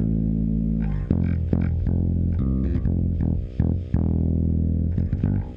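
Electric bass guitar playing a line of plucked notes over a steady electrical hum with many harmonics: mains buzz from poor grounding on the bass recording.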